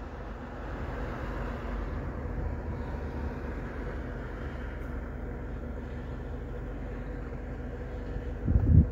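Steady low rumble and hiss of background noise with a faint steady hum, and a low thump near the end.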